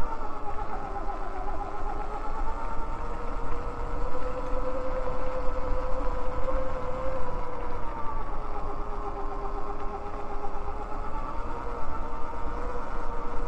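Electric bike motor whining in a steady tone whose pitch rises and falls slowly with riding speed, over a constant low wind rumble on the microphone.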